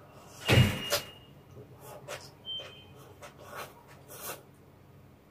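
Ramen noodles slurped in one loud, hissing slurp about half a second in, followed by soft, scattered chewing and mouth sounds.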